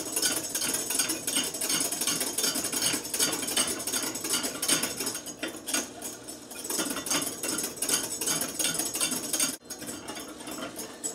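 Wire whisk beating egg yolks and water in a glass bowl, its wires scraping and ticking against the bowl in quick, steady strokes as the sabayon for hollandaise is cooked over steam.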